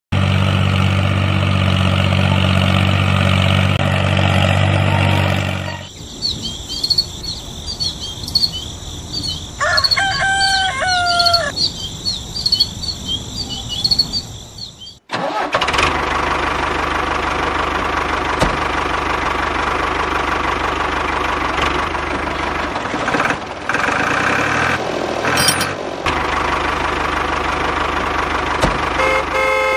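Tractor engine running with a steady deep note, then a quieter stretch of birds chirping with a short call about ten seconds in, then the engine running again. A horn sounds briefly at the end.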